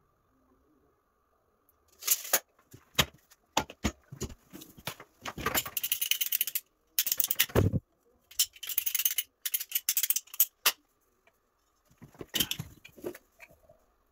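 Hand tools and white plastic water pipe being handled: irregular sharp clicks and rattles with short rasping bursts, starting about two seconds in and stopping and starting for about eleven seconds, as the pipe is cut to length with a hand pipe cutter.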